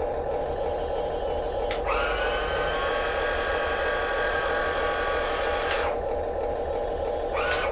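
Small electric motor of an RC construction model whining steadily for about four seconds, starting about two seconds in and cutting off, over a constant hum.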